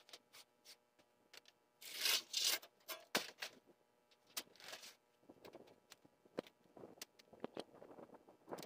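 Irregular clicks, knocks and scraping, with the longest, loudest scrape about two seconds in.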